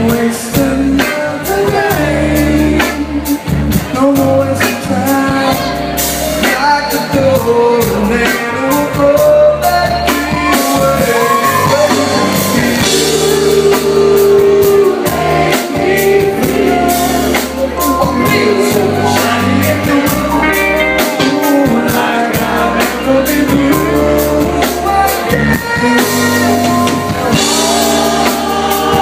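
Live soul band playing at full volume, with a man singing lead over the band's drums and low bass notes.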